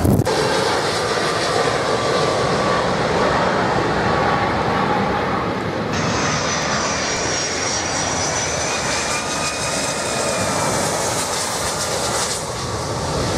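Jet airliner engines at close range: a loud, steady rush of jet noise that changes abruptly about six seconds in and again near the end. From about six seconds in, a high engine whine sits above the rush.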